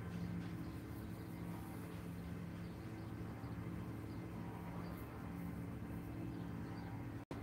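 Steady outdoor background noise with a low, even hum under it, cutting out for a split second near the end.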